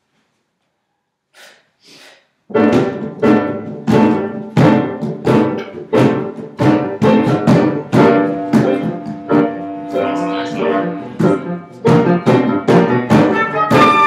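After about two and a half seconds of near silence, a small live wind ensemble, saxophone and clarinet among them, starts playing: loud, strongly accented chords about every two-thirds of a second over held notes.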